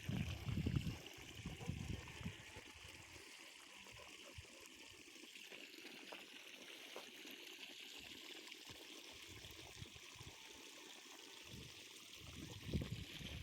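Water running out to water a tree, a steady faint trickle and hiss. There are a few low bumps in the first second or so and again near the end.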